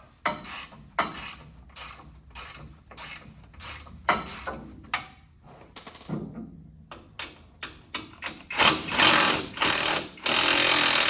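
Hand socket ratchet wrench worked back and forth on a suspension nut, a burst of pawl clicks with each stroke. Near the end the strokes come faster and louder, into an almost unbroken ratcheting.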